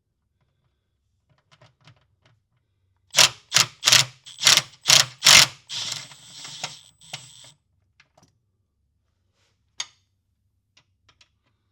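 A 1/4-inch drive ratchet with a swivel socket working a bolt: about six loud clicking strokes roughly half a second apart, then a quicker rattling run of ratcheting before it stops.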